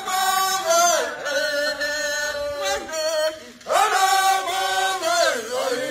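Chanting voice with long held notes that slide downward at the ends of phrases, broken by a short pause a little past halfway.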